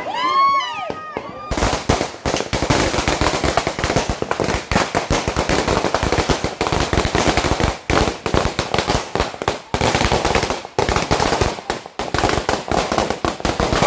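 Fireworks going off: a dense, rapid string of sharp bangs and crackles, many a second, starting about a second and a half in and going on with only brief breaks.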